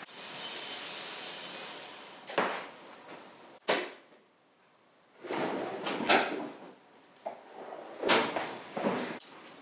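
Workshop handling noise: a hiss for about the first two seconds and a couple of sharp clicks, then clattering and sliding from a metal tool-chest drawer being opened and shut, with parts knocked on a steel bench.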